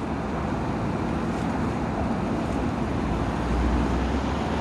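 Steady low rumble and noise of road traffic, with a vehicle engine's low hum joining about three seconds in.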